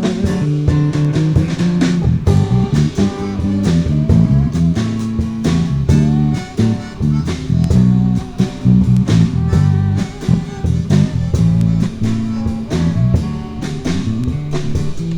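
A blues-rock band playing an instrumental passage between vocal lines: guitar, bass guitar and drum kit, with no singing.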